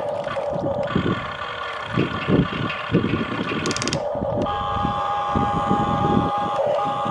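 Electric motors of a radio-controlled toy excavator whining steadily, pausing briefly about four seconds in and starting again at a slightly different pitch, over irregular scraping and knocking.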